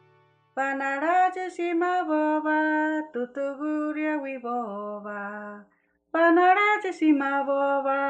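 A single voice chanting unaccompanied in long held notes that step up and down, starting about half a second in and pausing briefly before carrying on.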